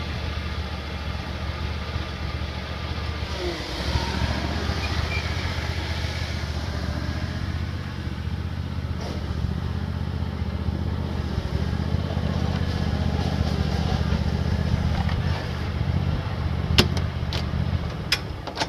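Pickup truck engine idling steadily, dying away near the end. A few sharp metal clanks come in the last couple of seconds as someone climbs onto the equipment trailer.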